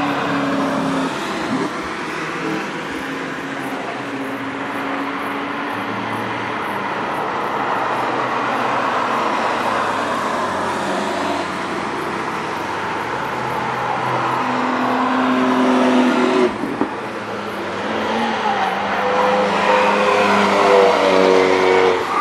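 Car engine running hard under acceleration, its pitch climbing. It cuts out suddenly and briefly about sixteen seconds in, then climbs in pitch again toward the end.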